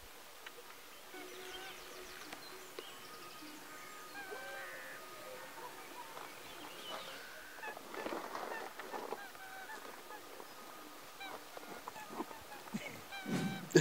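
Waterfowl calling faintly, a scatter of short honks throughout, with a soft rustle about eight seconds in.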